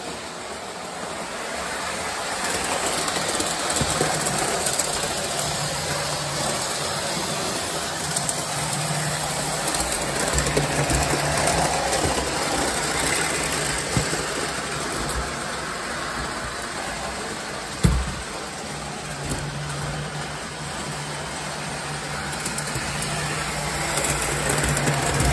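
O scale model train running around three-rail track: a steady whir and rumble of the locomotive's motor and wheels on the rails, with a low hum that comes and goes. One sharp click about two-thirds of the way through.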